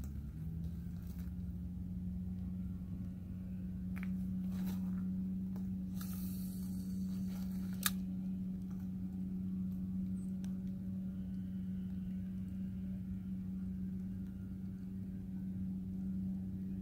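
Steady low hum of a distant motor, rising slightly and settling onto one pitch about half a second in. A few light clicks and a short hiss come midway, then one sharp click.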